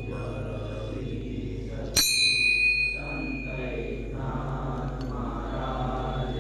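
Voices chanting, with a small bell struck once about two seconds in, ringing clearly and fading out within about a second.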